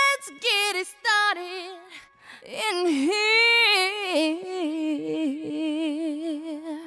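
A high voice singing unaccompanied in long, wavering notes with heavy vibrato that slide downward. The singing breaks off briefly about two seconds in, then carries on.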